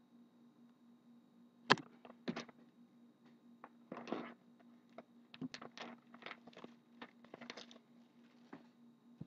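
Hockey card box and card packs handled on a cloth-covered table: scattered taps, clicks and rustles of cardboard and pack wrappers, the sharpest tap about two seconds in and a longer rustle near the middle. A faint steady hum runs underneath.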